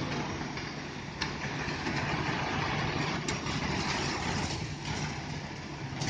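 Hino Ranger concrete mixer truck's diesel engine running steadily while it turns the drum to unload concrete down the chute, under a steady hiss. Two sharp clicks come about one and three seconds in.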